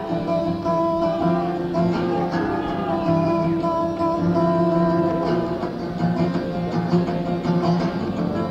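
Acoustic guitar strumming chords with ringing, sustained notes in the instrumental opening of a live folk song, heard through a low-fidelity 1970s audience cassette recording.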